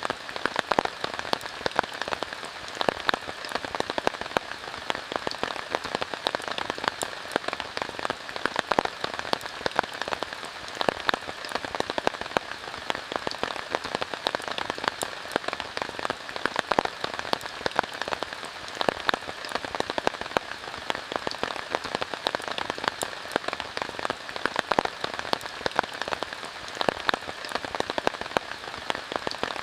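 Steady rain falling, with a constant hiss and many sharp, irregular drop hits on a surface.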